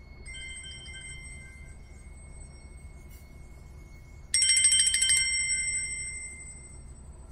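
A bell ringing: a soft ring just after the start, then a loud burst of rapid clapper strikes about four seconds in that lasts about a second and rings out over the next two seconds.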